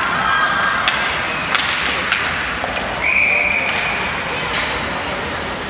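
Ice hockey sounds: several sharp clacks of sticks and puck over arena crowd noise. About three seconds in, a referee's whistle gives one steady blast of about a second and a half, stopping play.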